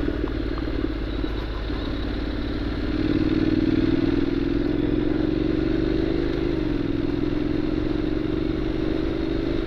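Honda 750X DCT motorcycle's parallel-twin engine running while riding along the road. It pulls harder and gets louder about three seconds in, then holds a steady note.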